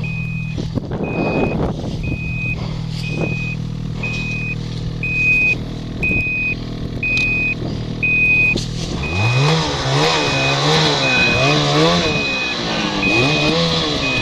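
A vehicle's reversing alarm beeping steadily about once a second over a running engine. From about nine seconds in, the engine revs up and down in repeated surges.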